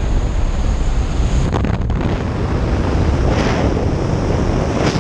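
Rushing airflow at the open door of a jump plane in flight, buffeting the camera microphone as a steady roar. It turns hissier about three seconds in, as the tandem skydivers move out into the doorway.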